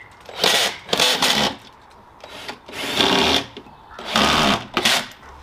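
Power drill driving screws into wooden panels in several short bursts of about half a second each, with pauses between them.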